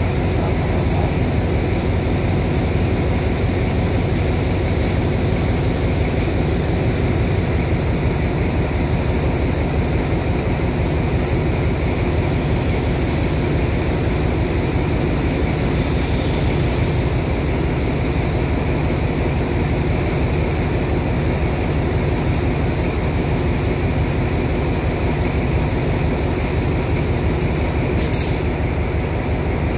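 Diesel passenger train standing at the platform with its engine idling: a steady low drone. A single sharp click near the end.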